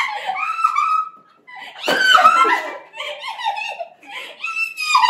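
Young women laughing and giggling in short, high-pitched bursts.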